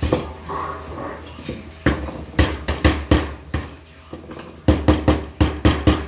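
Hammer striking galvanized sheet-metal duct to bend over the end of a return air boot. A quick run of sharp metallic blows comes first, then after a short pause a steady run of about four blows a second, each ringing briefly in the metal.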